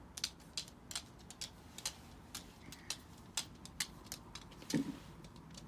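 Faint, irregular clicking of a Shiba Inu's claws on a wooden floor as it walks, about two or three clicks a second. A short, louder low sound comes about three-quarters of the way in.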